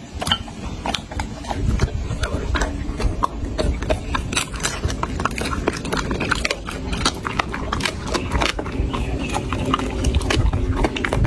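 A dog chewing and crunching food, with many quick, sharp crunches throughout.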